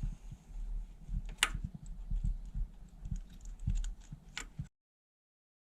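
Light, irregular clicking and tapping of hand tools and small metal parts being handled on an engine, with two sharper clicks among them. The sound cuts off to dead silence near the end.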